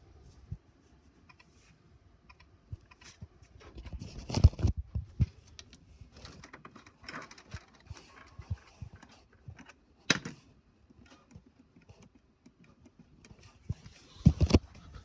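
Irregular clicks, taps and rustling from the recording device being handled and carried past things, with louder knocks about four and a half, ten and fourteen seconds in.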